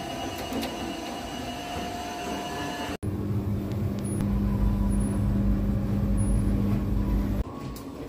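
Steady mechanical hum with a few held tones, cut off abruptly about three seconds in and replaced by a louder, deeper rumble with a steady low tone, which stops suddenly near the end.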